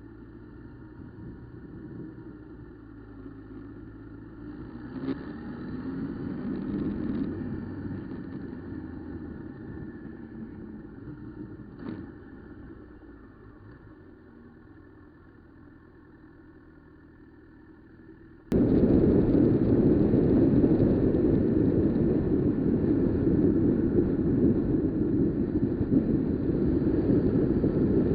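Honda CB1000R motorcycle engine running fairly quietly, swelling for a few seconds about a quarter of the way in. About two-thirds of the way through the sound cuts abruptly to loud, steady wind rush over the camera microphone while the bike rides at speed in strong wind.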